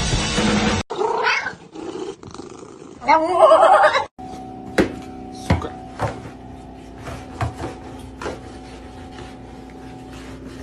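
Rock music cuts off, then a cat yowls twice, the second call longer and louder, rising and falling in pitch. After that, a steady hum runs under a string of sharp taps from a stick being poked about under a refrigerator.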